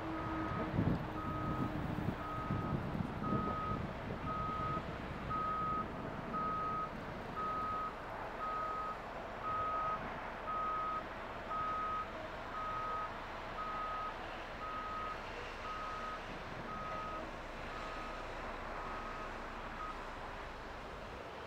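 Backup alarm on a heavy construction machine beeping steadily about once a second over diesel engine rumble, stopping shortly before the end. A few low heavy thuds come in the first few seconds.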